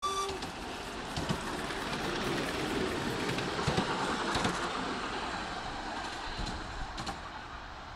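Miniature live-steam locomotive letting off steam: a steady hiss with scattered knocks that fades toward the end. A brief whistle note sounds right at the start.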